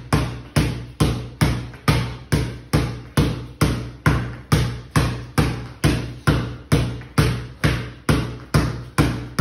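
A basketball dribbled steadily on a bare concrete floor, about two to three bounces a second, each bounce ringing briefly in the room.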